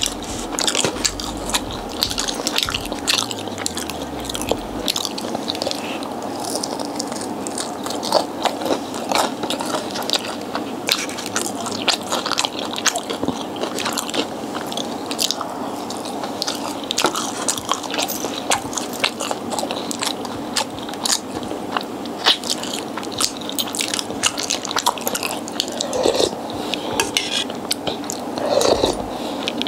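Close-up mukbang eating sounds: biting and chewing crispy fried chicken wings, with irregular crunches and wet mouth clicks throughout.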